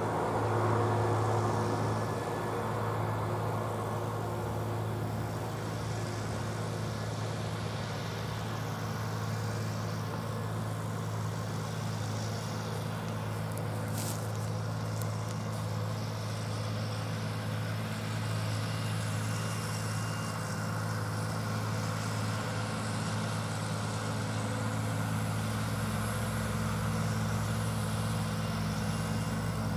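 John Deere 8430 tractor's six-cylinder diesel running steadily under load while it pulls a 26-foot S-tine field cultivator through plowed ground, a continuous low engine drone.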